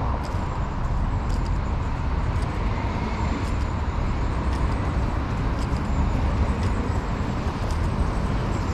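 Footsteps on a leafy dirt woodland path, a scatter of short crunches and clicks, over a steady low rumble. Faint high bird calls come and go.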